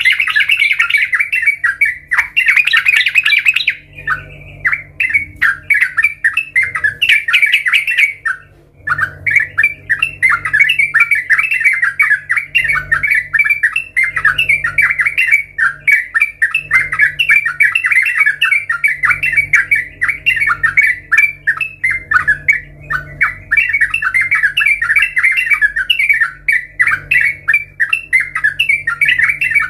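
Yellow-vented bulbul (trucukan) singing a rapid, continuous chattering song, with a brief pause about eight seconds in.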